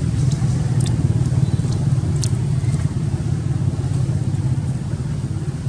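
A steady low engine rumble, like a motor vehicle idling nearby, fading slightly toward the end, with a couple of short sharp crackles about one and two seconds in.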